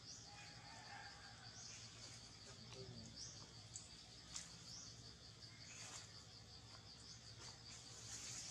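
Faint forest ambience: insects give a steady, evenly pulsing high trill, with a few short high chirps about four and six seconds in.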